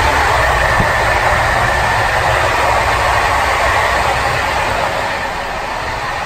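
Running noise of an SNCF Corail passenger coach at speed, heard in the vestibule by the doors: a steady low rumble of wheels on rail under a rushing hiss. It eases slightly near the end.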